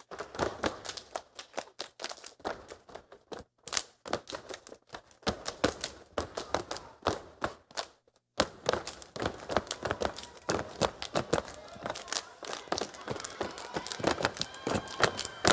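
Step team stepping: feet stomping on a wooden stage and hands clapping in fast, sharp rhythms, breaking off briefly twice, about four and eight seconds in.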